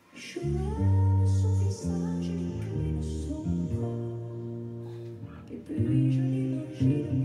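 Electric bass guitar playing held low notes along with a recorded song in which a woman sings. The music starts about a quarter second in.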